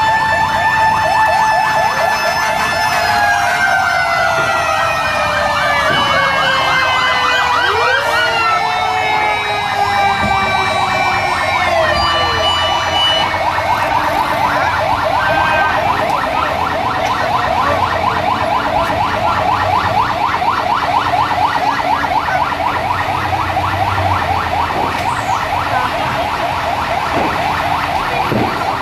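Several fire truck sirens sounding at once. A held wail slides slowly down in pitch over the first ten seconds or so while other sirens rise and fall over it, then a fast warbling yelp takes over and keeps going.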